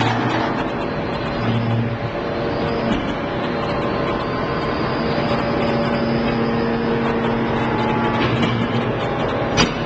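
Anyang hydraulic briquetting press running while it compresses aluminium chips into briquettes: a steady machine noise with a hum, and a faint high whine that rises slightly a few seconds in. A sharp knock comes near the end.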